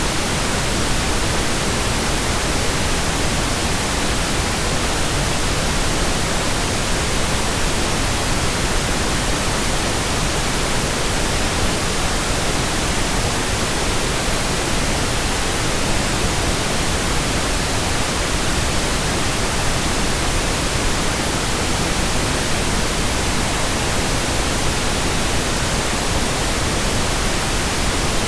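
Steady synthetic white noise: an even, unchanging hiss across all pitches, with no rhythm or change.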